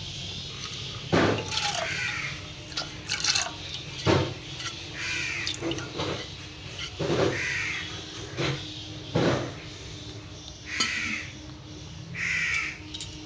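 Crows cawing again and again, several short harsh calls a second or two apart. A few sharp knocks come in between.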